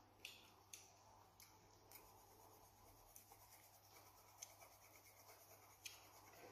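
Faint scratching of a colored pencil shading on paper, with a few sharper ticks over a low steady hum.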